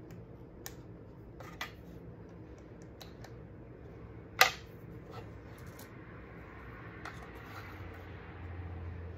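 Small clicks and taps of thin 3D-printed PLA iris blades being handled and set down on a plywood board, with one sharper click a little past halfway, over a faint steady hum.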